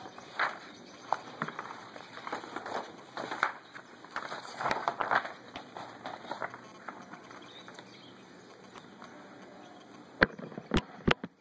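Paper rustling and crackling as a sheet is handled and turned over, followed near the end by a few sharp clicks in quick succession.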